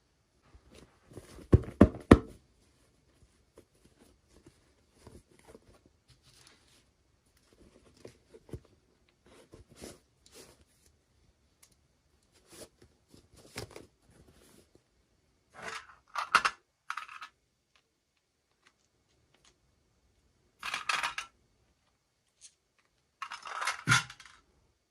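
Hands unwrapping small toy packaging: scattered clicks and light knocks, with several louder bursts of tearing and crinkling in the second half.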